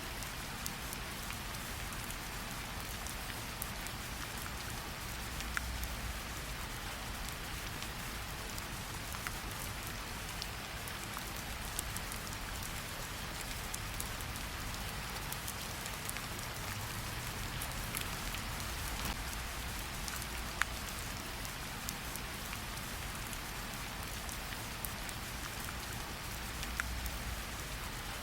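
Steady rain falling against a window, an even hiss with scattered sharp ticks of individual drops.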